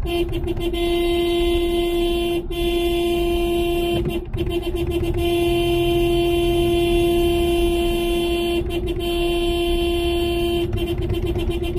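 Car horn held down in long continuous blasts, broken by a few short gaps, over the low rumble of a moving car.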